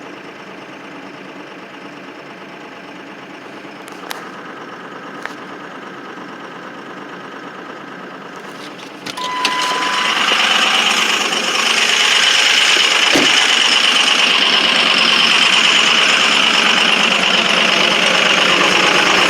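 Ford 6.0 Powerstroke V8 turbodiesel running just after a 17°F cold start, with injectors 1 and 5 misfiring. About nine seconds in it suddenly gets much louder and stays loud and steady, with a short beep as the change comes.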